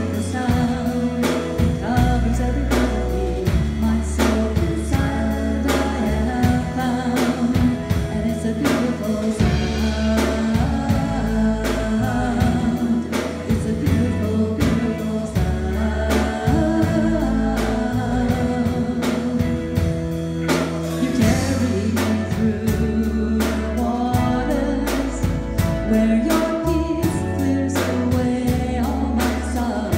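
Live worship band playing a contemporary song: a woman singing lead over electric guitars, drum kit and keyboard, with a steady beat and sustained low bass notes.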